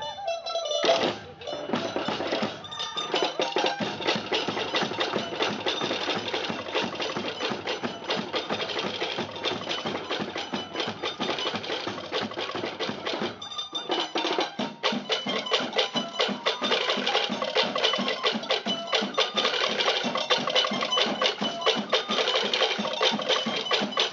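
Tahitian percussion ensemble playing a fast, driving 'ōte'a rhythm, led by sharp wooden strikes of to'ere slit-log drums with deeper drums beneath. The beat drops out briefly a little past halfway, then resumes.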